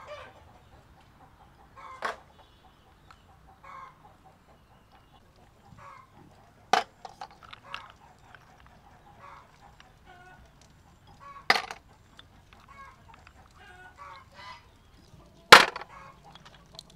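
Snail shells clicking sharply against a stainless-steel colander four times, with lighter taps between, as the snails are handled one by one. Chickens cluck in the background.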